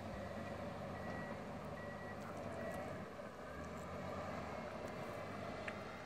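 Distant bulldozer engine running, with its reversing alarm beeping evenly about once a second; the beeps fade out after about three seconds.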